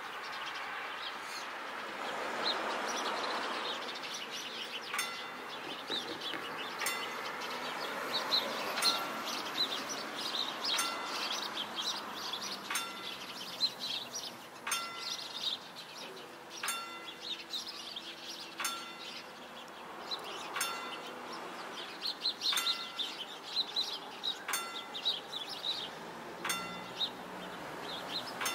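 Pintsch Bamag level-crossing loud-tone bell striking about once every two seconds, each stroke ringing on briefly; its beat runs out of step with the flashing lights, as the bell likely has its own timer. A car drives off over the crossing in the first few seconds, and birds chirp throughout.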